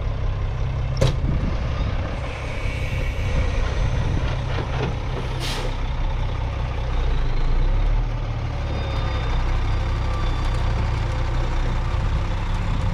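Loaded dump truck's Caterpillar diesel engine running slow while it maneuvers, with a sharp click about a second in and a short hiss of air, typical of the air brakes, about five seconds in. The engine note swells briefly near the middle.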